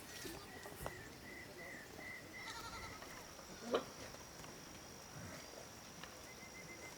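Goats bleating faintly, with one short, sharp call louder than the rest about halfway through. A steady high-pitched insect whine starts about three seconds in and carries on.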